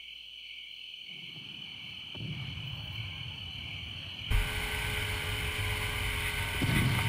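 Motorboat under way: engine rumble with wind and water noise and a steady high hum. Faint at first, it jumps abruptly louder with a thump about four seconds in.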